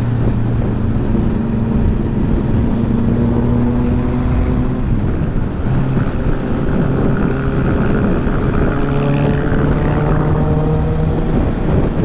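Honda CBR650F's inline-four engine running at speed, over a heavy rushing of storm wind. Its note holds and rises a little, breaks off about five seconds in, then climbs steadily as the bike pulls harder.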